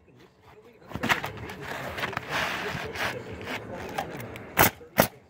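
Pneumatic coil roofing nailer firing nails through asphalt shingles: one shot about a second in and two more near the end, half a second apart. Between the shots, shingles rustle and scrape as they are set in place.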